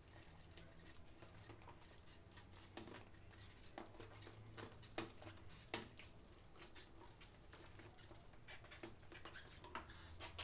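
A plastic rolling pin rolled back and forth under both palms over a sheet of dough on a plastic mini-pastel mould tray, making faint, irregular clicks and crackles as the dough is pressed onto the tray.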